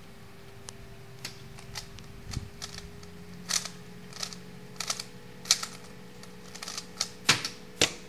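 Plastic speedcube (Rubik's Cube) being turned fast: a run of sharp, irregular clicks and clacks that comes thicker in the second half, with the loudest snaps near the end.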